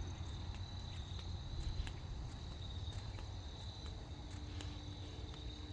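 Crickets trilling steadily in one high, even tone, over a low rumble and a few faint scattered clicks.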